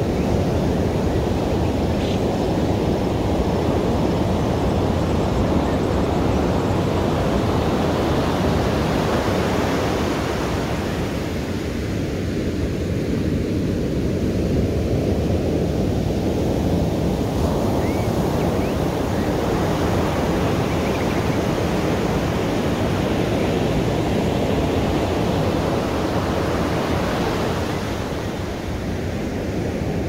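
Ocean surf: a steady wash of waves breaking and running up a beach, swelling and easing slowly, thinning for a few seconds around the middle.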